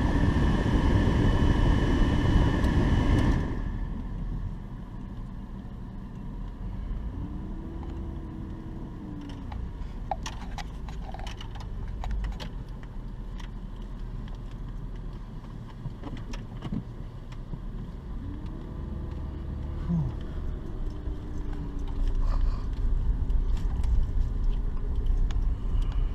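Jeep driving: loud road and wind noise for the first few seconds cuts off abruptly. Then a quieter steady rumble, with the engine note rising and falling twice and holding steadier near the end, and scattered rattles and clicks.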